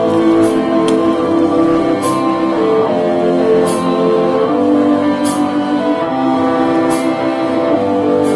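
A rock band playing live: sustained chords ringing over a steady beat, with a cymbal crash about every second and a half.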